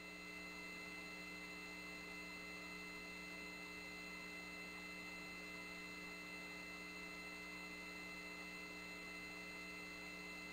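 Faint, steady electrical hum on an open radio voice loop between calls: several unchanging tones, low and high, over a light hiss.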